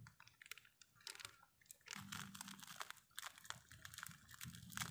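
Faint crinkling and crackling of plastic milk sachets being squeezed and handled, an irregular run of small crackles.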